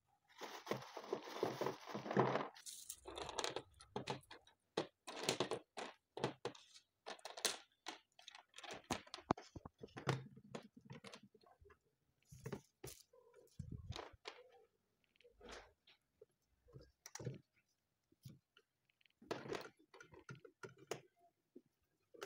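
Plastic misting nozzles and fittings of a home misting kit being handled and pressed into place: irregular crunches, clicks and crackling rustles with short pauses between them.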